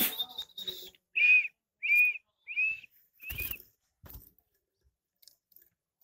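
A person whistling four short, evenly spaced high notes, each rising and falling slightly in pitch. There is a knock from handling at the start and another with the fourth note.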